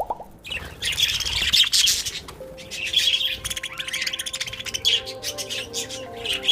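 Budgerigars chattering and chirping in repeated rapid bursts. Soft music with held notes comes in underneath about two and a half seconds in.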